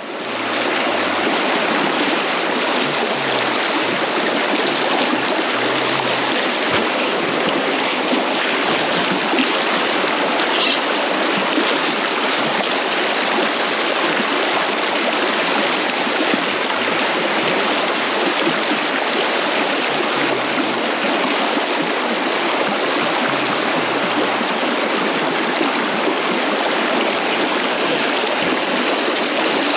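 Fast-flowing river water rushing steadily over stones: a spate river running high after a flood.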